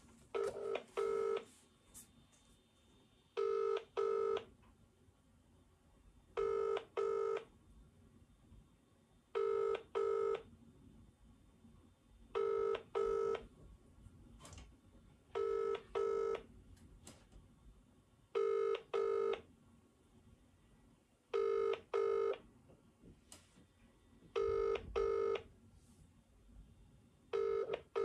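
Telephone ringback tone from a smartphone's loudspeaker, in the British double-ring pattern: two short rings, then a pause, repeating every three seconds about ten times. It is the sign that the dialled phone is ringing and nobody has picked up yet.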